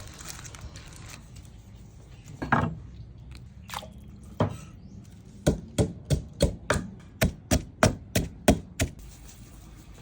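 Knife chopping food on a cutting board: a few separate chops, then a steady run of about a dozen chops at roughly three a second.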